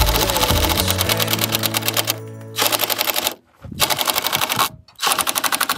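DeWalt cordless impact driver hammering a long screw into a wooden roof purlin. It runs in three bursts: one of about three seconds, then two shorter ones separated by brief pauses.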